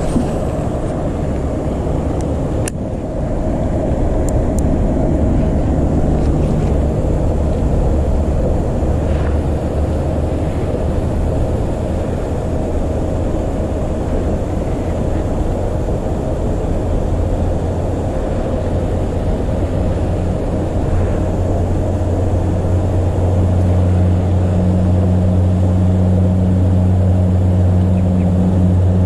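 A steady low motor drone with a humming note, which grows a little louder and stronger about two-thirds of the way through.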